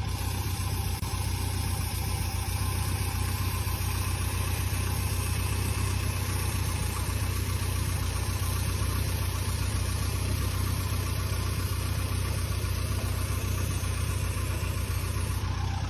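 A motor vehicle engine idling steadily, with a deep, even hum.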